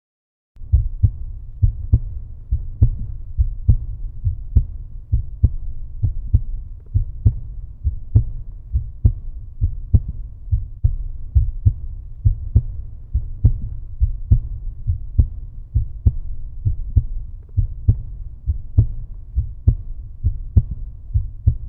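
Heartbeat sound: low thumps in an even, steady rhythm of a little more than one beat a second (about 68 a minute). It starts suddenly about half a second in, after silence.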